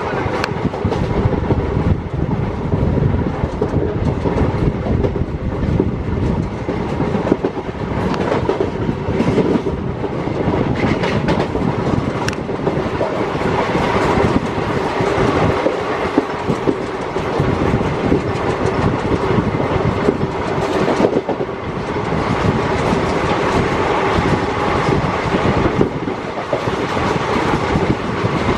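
Passenger train running on the rails, heard from on board: a steady loud rumble, with the wheels clattering over the track throughout.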